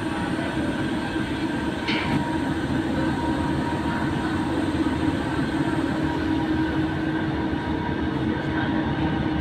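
Steady mechanical drone and rumble of a roll-on/roll-off ferry's machinery as its inner bow ramp lowers behind the opened bow doors, with a brief higher-pitched squeak about two seconds in.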